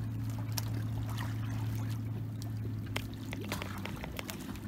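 A small boat's engine running steadily with a low, even hum, with scattered light clicks and knocks over it.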